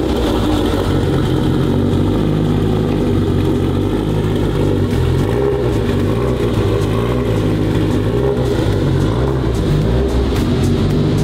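A supercar's engine running at low speed as the car is driven slowly out of the shop.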